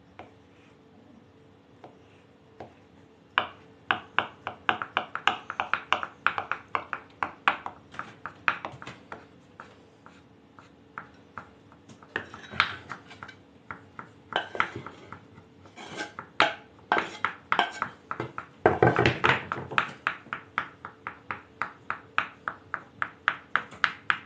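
Kitchen knives chopping boiled potato into small dice on wooden cutting boards: quick sharp taps of the blade on the board, about three a second, starting a few seconds in, with a louder, denser stretch about three-quarters of the way through.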